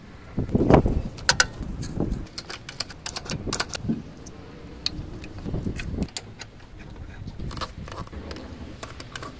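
Small metal clicks, taps and light rattles of hand work on a scooter's handlebar brake lever and cable: metal parts and a wrench handled and fitted, with a few soft knocks among them.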